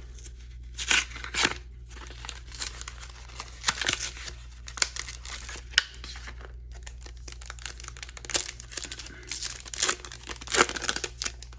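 Packaging of a trading-card blister pack being torn open, crinkling and rustling in irregular bursts.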